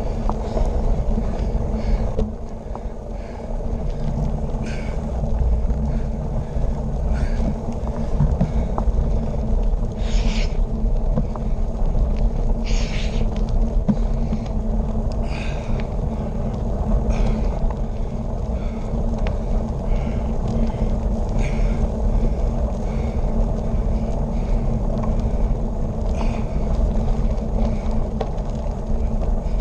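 Steady low rumble of wind buffeting a handlebar-mounted camera's microphone, mixed with bicycle tyre and road noise while riding at speed. Short hiss-like bursts come every second or two.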